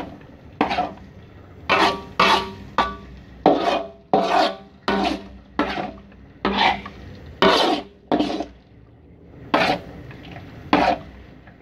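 A spatula scrapes and stirs thick peanut sauce around a metal wok in repeated strokes, roughly one or two a second.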